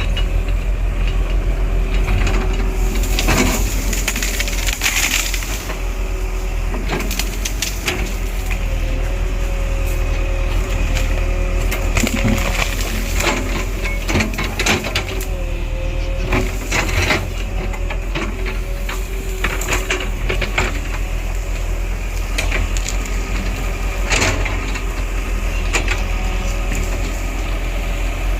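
Heavy diesel earth-moving machine running steadily, with irregular clanks, knocks and scraping throughout.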